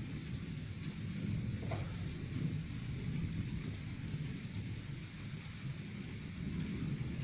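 Light rain falling, with a low, steady rumble underneath from distant thunder of an approaching thunderstorm.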